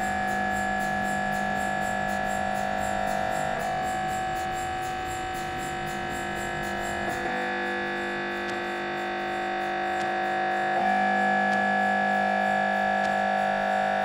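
Layered recordings of MRI scanners, unprocessed, played back as music: steady droning tones stacked at several pitches, with a fast pulsing high up. The blend of tones shifts every three to four seconds.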